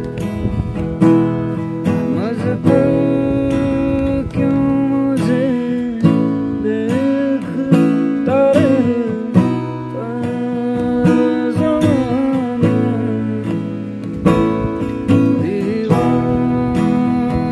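Acoustic guitar strummed steadily, with a man singing a melody over it.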